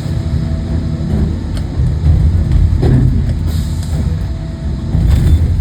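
Sawmill engine running steadily, with several heavy knocks and a big thud near the end.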